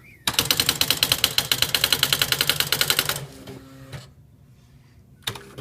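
Smith Corona Display 900 electronic typewriter printing a stored line onto the paper: a fast, even run of about ten strikes a second for roughly three seconds, then a brief motor hum as the carriage moves back.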